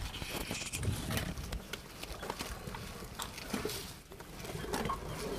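Elephants moving right over the microphone: scattered clicks, rustles and soft low thuds.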